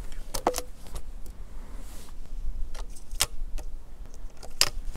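A series of sharp clicks and knocks: a hunter's gear being handled by a gloved hand. There is a close pair about half a second in, then several more spread through the second half, over a steady low rumble.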